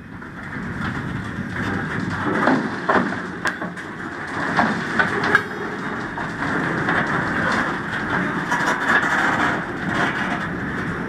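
Train of aluminum coal hopper cars rolling past close by: a steady rumble of steel wheels on rail, with scattered clanks and knocks that cluster a few seconds in.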